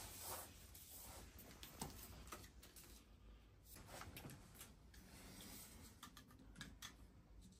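Faint, scattered clicks and snips of hand cutters stripping the sheath of a white electrical cable, mixed with light handling of the cable.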